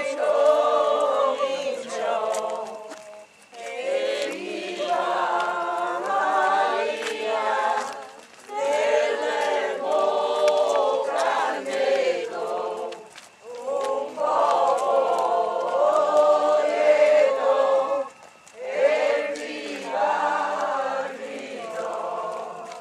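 A crowd of people singing together, in sung phrases of about four to five seconds with short breaks for breath between them.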